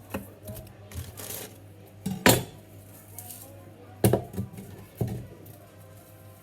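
Kitchen clatter: utensils and dishes knocking and clinking on a work surface. There are a few sharp knocks, the loudest about two seconds in and another about four seconds in, over a steady low hum.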